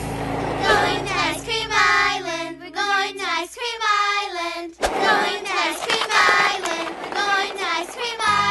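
High, childlike voices singing a tune, with a short break about five seconds in.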